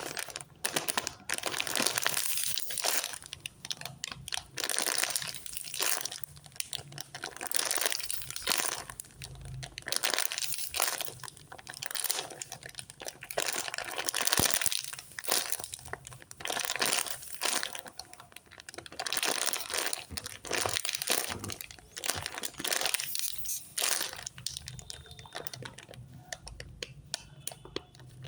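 A squishy toy being squeezed and released over and over, crinkling and crunching with each squeeze, about every one to two seconds.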